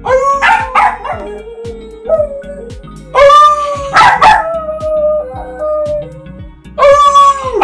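A man and a West Highland white terrier howling together: three rounds of long, drawn-out howls, each starting loud and trailing off, with the dog's higher howls mixed in.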